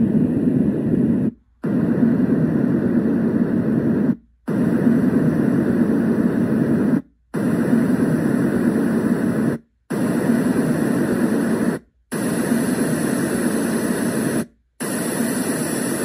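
Dream Egg white noise machine playing its white-noise tracks through its speaker: steady noise, heaviest low down, with a faint high hiss on some tracks. It cuts out briefly six times, every two to three seconds, as each next track is selected.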